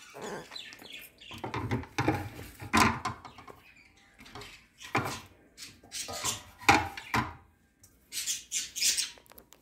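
Pet birds chirping in short irregular calls, over light clatter of kitchen dishes and utensils.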